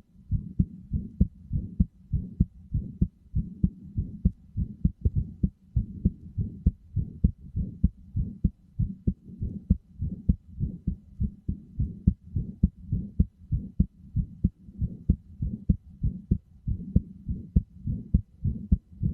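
Recorded heartbeat: a steady, regular rhythm of low, muffled thumps.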